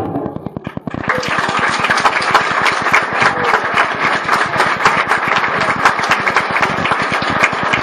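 Audience applauding: scattered claps at first, swelling about a second in into dense, steady applause.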